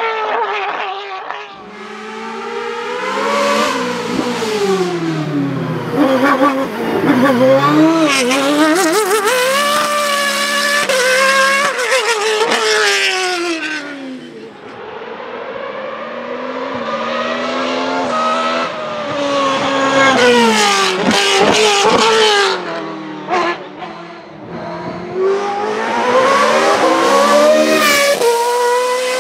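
Racing car engines at high revs, pitch climbing and dropping again and again through quick gear changes and downshifts as cars pass one after another. There are a few sharp exhaust cracks a little past the middle, and another car comes up loud near the end.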